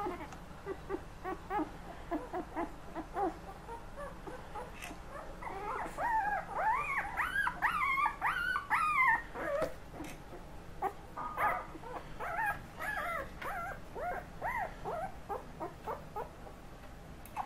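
A litter of young puppies whimpering and squeaking, many short rising-and-falling calls overlapping. The calls come thickest a third of the way in, then turn sparser and scattered.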